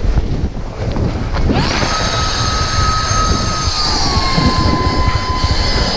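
Avalanche snow rushing and wind buffeting the microphone, a loud dense rumble, as the snowboarder is swept down the slope. About one and a half seconds in, a steady high whistle comes in and drops slightly in pitch about four seconds in.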